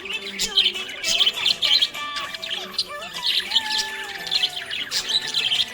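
Small pet parrots chirping and chattering continuously, many quick overlapping high chirps with a few longer gliding whistles.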